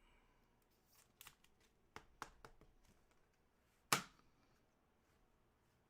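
Trading cards being handled: faint rustles and light clicks of cards and plastic sleeves, with one sharper snap about four seconds in.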